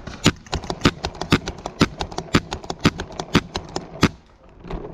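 Paintball markers firing, a rapid run of sharp pops at about two a second with fainter shots in between, stopping about four seconds in.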